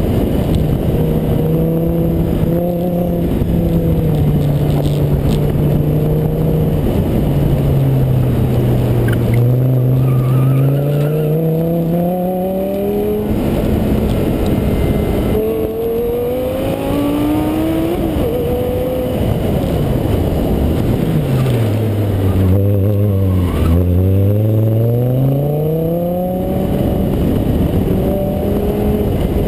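Audi R8's V10 engine driven hard through an autocross run, its note climbing and falling with the throttle. Twice, about a third of the way in and again past two-thirds, the revs sink low and then climb back up.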